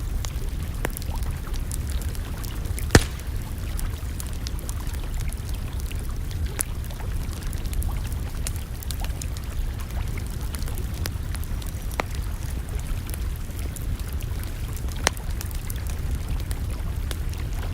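Campfire crackling: scattered sharp ticks and snaps, with two louder pops about three seconds in and near the end, over a steady low rumble.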